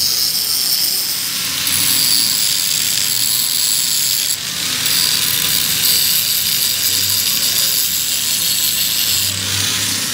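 Angle grinder's abrasive disc grinding the steel of a truck's front axle at the kingpin eye: a loud, harsh, high-pitched grinding with a brief break about four seconds in. The grinder comes off the metal near the end.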